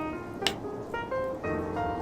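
Background music: a piano or keyboard melody stepping from note to note, with one sharp crack about half a second in.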